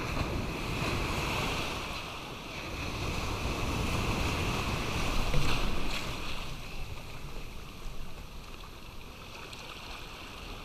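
Shorebreak surf washing and churning in shallow water around the camera, with wind on the microphone. The noise swells and eases as the waves come through, loudest about five seconds in and quieter near the end.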